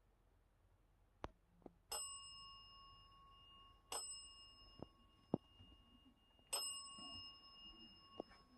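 A small metal bell struck three times, about two seconds apart, each strike ringing on with a clear high tone that fades slowly. A few faint sharp clicks fall between the strikes.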